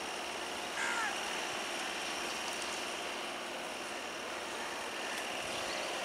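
Steady rolling noise of a slow-moving passenger train's coaches running away round a curve, with a brief high-pitched call about a second in.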